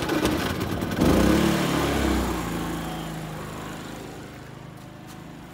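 Predator 3500 inverter generator's small single-cylinder gasoline engine running just after an electric start. It is loudest about a second in, then grows gradually quieter.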